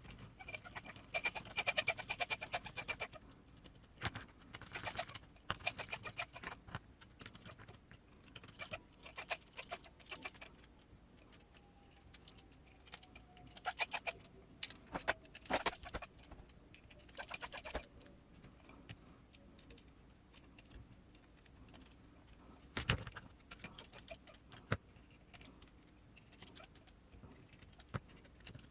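Small metal screws and hand tools clicking and rattling during hand assembly of an RC crawler chassis, in irregular bursts of light clicks with one sharper knock about two-thirds of the way through.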